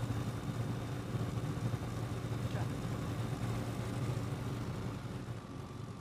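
Light single-engine propeller airplane's piston engine running steadily, a low even hum that eases off slightly near the end.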